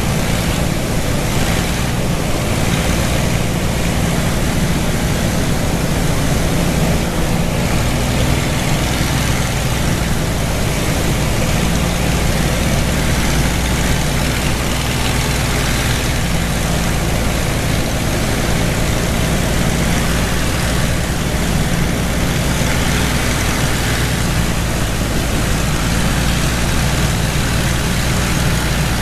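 Steady drone of a propeller aircraft's piston engine under a heavy rush of wind, heard from inside the cockpit in flight.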